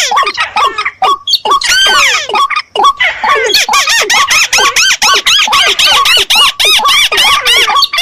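A combination of rice-field waterbird calls played as a hunting lure: rapid, repeated squeaky notes from more than one bird, overlapping, with short pauses at first and an unbroken run of about five notes a second from about three seconds in.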